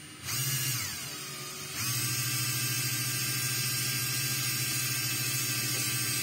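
Cordless drill-driver motor whirring as it spins a sheet of paper on its bit: a short burst that winds down, then a couple of seconds in it speeds up again and runs steadily at one speed.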